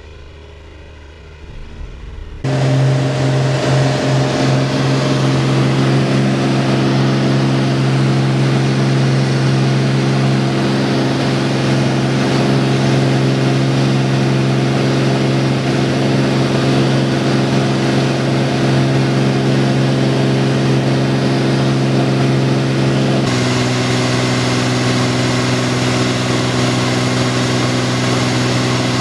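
Cirrus SR22's six-cylinder piston engine and propeller heard from inside the cabin, a loud steady drone in flight at about 2500 RPM. It cuts in suddenly after a quieter first couple of seconds, and its tone shifts slightly about 23 seconds in.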